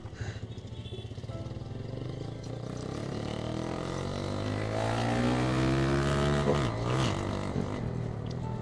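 Honda CBF Stunner's 125 cc single-cylinder motorcycle engine accelerating under throttle: its pitch climbs steadily for a few seconds, then falls away sharply about seven seconds in.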